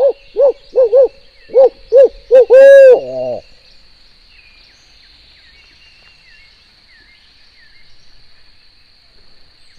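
Barred owl hooting imitated on an owl locator call, a turkey hunter's way to make a gobbler shock-gobble: seven loud, quick hoots, then a long final note that drops away about three seconds in. No gobble answers it, and faint birdsong carries on after.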